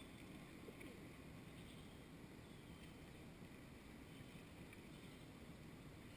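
Near silence: a faint low outdoor rumble with a few faint ticks.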